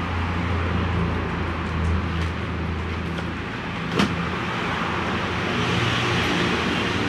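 Handheld electric heat gun blowing steadily as the vinyl decal is heated to lay it onto the van door: a steady airy hiss with a low motor hum that fades about halfway through. A single sharp click about four seconds in.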